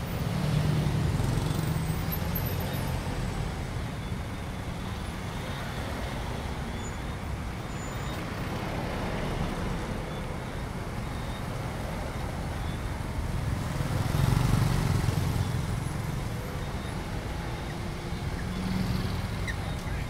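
Dense city street traffic, mostly motorbikes and scooters mixed with cars, making a steady hum of engines and tyres. Passing vehicles swell louder about a second in, again around two-thirds of the way through, and near the end.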